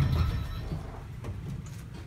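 Low, steady rumble inside a tram rolling slowly along the rails, with a short louder burst at the start and a few faint ticks.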